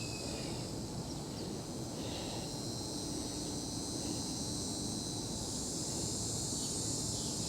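Steady high-pitched chorus of insects, such as crickets, over a low background rumble.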